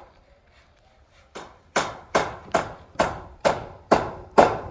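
Hammering: a steady run of sharp blows, about two to three a second, starting about a second and a half in and getting louder.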